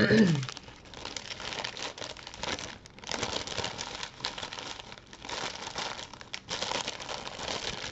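Clear plastic packaging bags crinkling and rustling as a bundle of bagged diamond-painting drills is handled and pushed back into its bag, in irregular spells.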